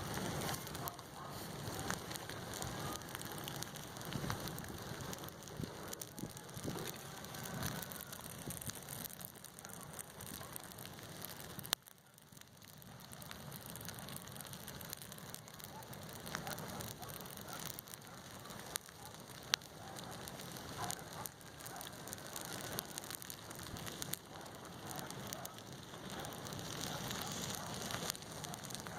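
Bonfire of waste paper burning: a steady hiss of flames with many small crackles and pops, and one sharper crack about twelve seconds in.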